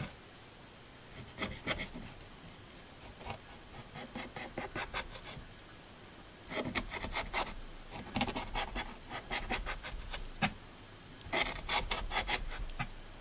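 Kitchen knife cutting along a largemouth bass fillet on a plastic cutting board to remove the pin bones: several bursts of quick rasping scrapes and clicks.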